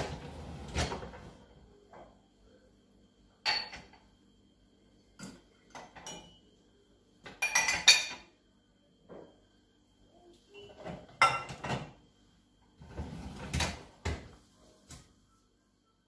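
Dishes and plastic containers clattering as they are handled in the wire racks of a Bosch dishwasher, in a series of separate knocks and rattles a second or two apart.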